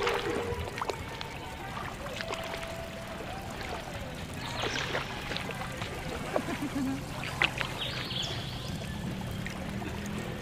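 Seawater splashing and lapping close by as people wade and swim, with a few sharper splashes about five and seven seconds in.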